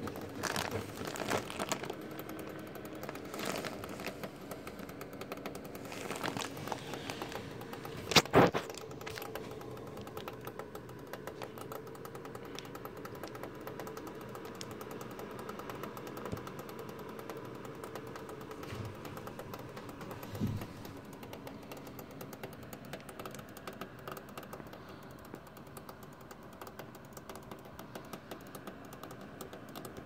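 Thermaltake Toughpower iRGB Plus 1200W Platinum PC power supply making irregular cracking and knocking noises over a steady hum, thickest in the first several seconds, with one loud crack about eight seconds in and a dull knock near twenty seconds. The noises are the sign of a fault inside the unit, serious enough that it should be switched off and unplugged at once.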